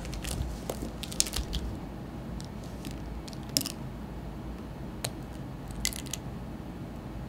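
Pens and paper being reached for and handled: scattered light clicks and crinkly rustles at irregular moments, over a low steady room hum.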